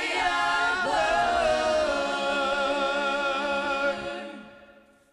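Solo singer and backing choir holding the song's final chord, which fades away about four seconds in.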